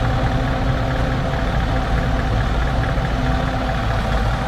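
A vehicle or machine engine running steadily, an even hum with a few constant tones that hold without change.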